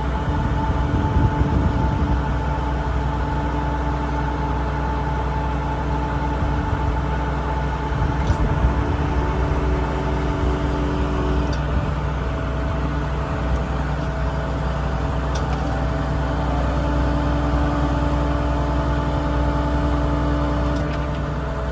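International 7.6-litre MaxxForce diesel truck engine idling steadily, with a few faint clicks.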